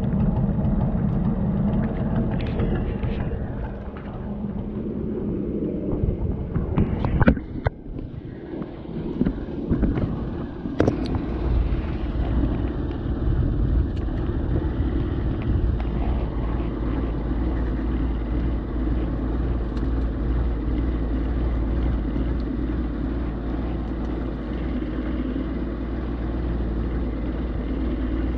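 Fishing boat's engine running steadily, with a few sharp knocks on the deck about seven and eleven seconds in.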